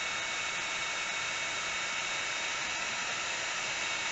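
Ryobi cordless drill running at a steady speed with a high motor whine held at one pitch, its bit cutting through the thin metal side of a tin can filled with ice.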